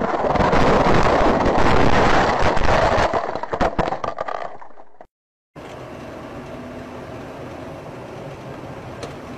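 Loud rushing noise with a rattle of knocks and crackles that dies away about five seconds in. After a brief silence, a car drives on steadily, its road and engine noise heard from inside the cabin.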